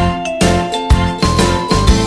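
Background music with a steady beat, about two beats a second, under a bright tinkling melody.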